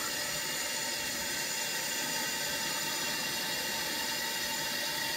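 Water running steadily with an even hiss as a home-brew header tank fills, pushing air out through a plate chiller.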